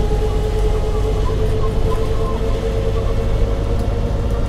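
MCW Metrobus double-decker under way, heard from inside the passenger saloon: a deep engine rumble with a steady whine that slowly rises in pitch as the bus gathers speed.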